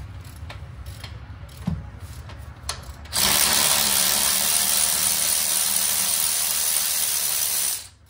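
A few light clicks, then a DeWalt cordless power tool runs steadily for about four and a half seconds, loosening a bolt on the underside of the car near the transmission, and cuts off sharply near the end.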